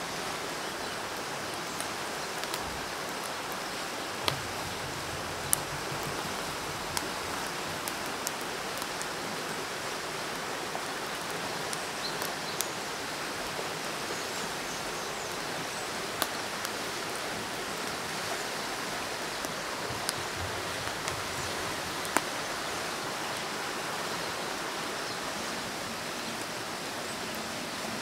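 Steady rush of flowing stream water, with scattered short clicks and taps from hands handling food on a wooden board.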